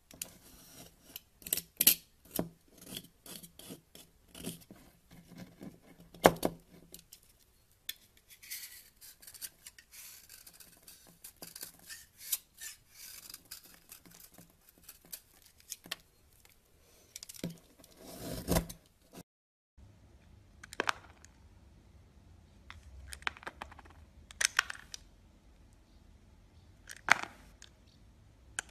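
Utility-knife blade shaving and cutting into a bar of soap: many close, crackly scraping and crumbling strokes as flakes break off. After a brief gap about two-thirds of the way in, fewer, spaced-out slicing strokes follow over a faint low hum.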